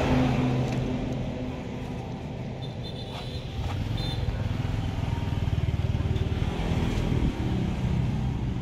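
Diesel tractor engine idling steadily, louder from about three and a half seconds in.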